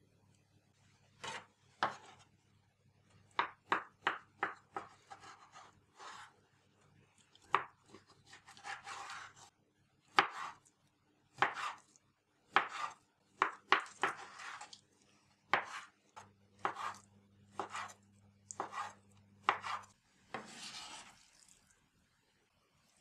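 Kitchen knife cutting raw chicken breast into cubes on a bamboo cutting board: irregular knocks of the blade through the meat onto the wood, some in quick runs, with a longer scrape near the end.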